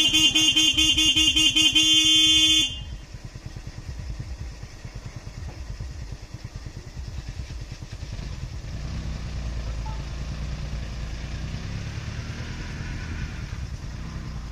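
A vehicle horn blares for about three seconds, with a fast warble in its tone. It stops abruptly and leaves a vehicle engine idling.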